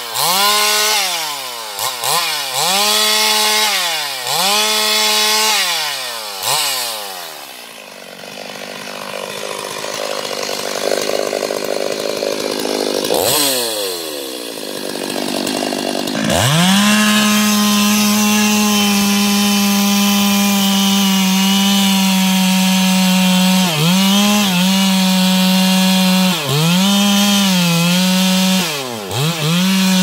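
Two-stroke chainsaw cutting into the base of a tree trunk. It is revved in short bursts about once a second for the first several seconds, then runs rougher and lower for a while. About halfway through it climbs to a steady full-throttle whine, dipping briefly a few times near the end.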